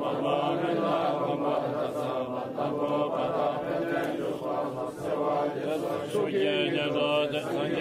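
Tibetan Buddhist chanting: voices reciting a prayer or mantra in a continuous, unbroken flow.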